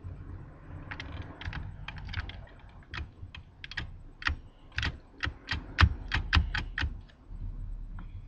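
A run of sharp clicks over a low rumble, irregular at first, then a steady run of about three a second near the middle.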